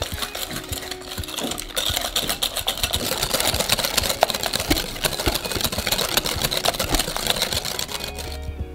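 Wire balloon whisk beating thick cream cheese in a glass mixing bowl: a fast, steady clatter of the wires ticking against the glass and squelching through the cheese, louder from about two seconds in.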